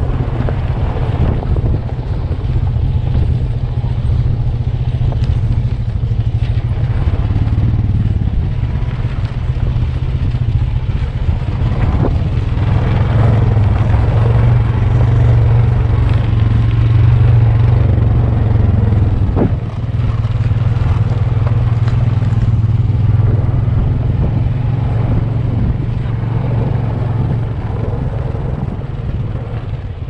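A vehicle engine runs steadily while driving, giving a loud low drone with scattered rattles and a couple of sharp knocks near the middle.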